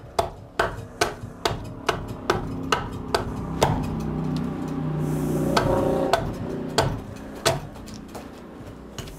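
Draw knife shaving a wooden ox yoke in short, quick strokes, each giving a sharp knock as the blade bites, about two a second. For a couple of seconds in the middle the strokes give way to a steady low hum, then a few more strokes follow.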